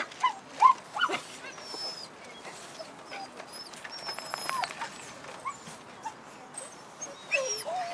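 Several caged dogs whining and yipping: a few short whines in the first second and again near the end, with thin high whines between.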